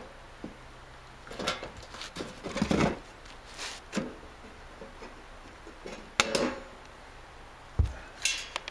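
Hand pop-rivet tool being squeezed to set rivets in a sheet-metal camera hood: scattered clicks and metallic clatter, with a sharp snap about six seconds in and a dull thump near the end.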